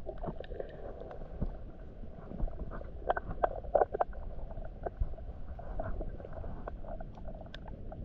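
Muffled underwater sound from a camera held below the surface in shallow water: a dull, steady rumble of moving water, with scattered clicks and knocks.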